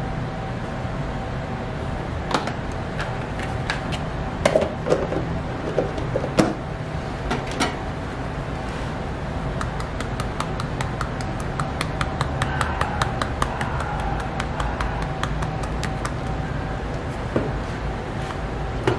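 Steady low hum of a shop's machinery, with scattered light clicks and knocks as small rice-cake cubes are set onto the waffle. Partway through, a fast, even run of light ticks, about five a second for several seconds, from a sieve being tapped to dust powder over the cream.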